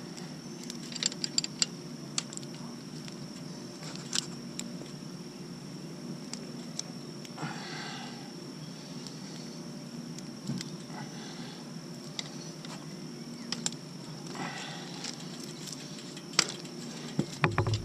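Scattered light metallic clicks and taps of hand tools working on a trike's pedal and pedal extender, with a couple of short rustles, over a steady background hum.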